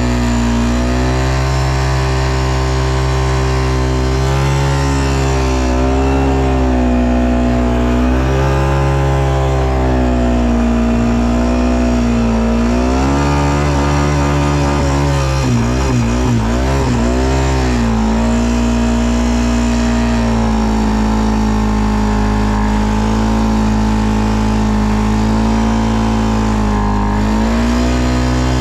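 ATV engine running under changing throttle, its pitch rising and falling every few seconds, with a brief wavering stretch about halfway through.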